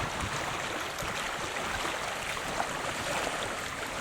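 Steady rushing wash of moving water, with a few faint ticks.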